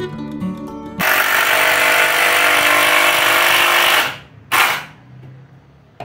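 Guitar music for about the first second, then a cordless drill-driver runs for about three seconds driving a screw into a wooden frame, stops, and gives one short burst half a second later.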